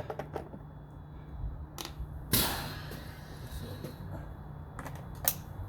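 A few sharp clicks and one louder knock with a short ring about two and a half seconds in, over a steady low hum.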